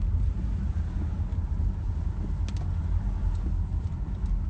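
Steady low rumble of a car driving on a wet road, heard from inside the cabin, with a few faint ticks over it.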